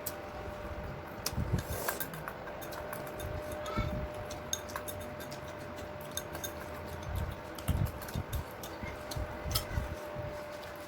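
Scattered small clicks and clinks of cutlery against dishes, with soft handling thumps, over a faint steady hum.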